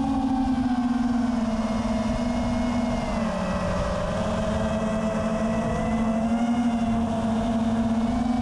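A 5-inch FPV quadcopter's brushless motors and propellers whining steadily in flight, over wind rush on the onboard camera's microphone. The pitch drops about three seconds in as the throttle eases off.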